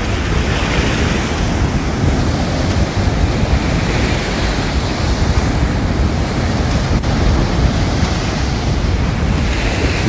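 Sea surf breaking and washing up a sandy beach, with wind buffeting the microphone.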